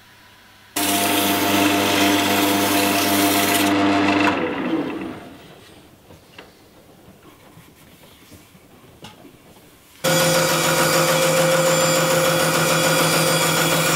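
Wood lathe motor starting suddenly, running steadily for about three seconds, then switched off and winding down with falling pitch. After a quiet stretch with a few light knocks, a bandsaw starts suddenly and runs steadily as it cuts into a turned wooden ball grip.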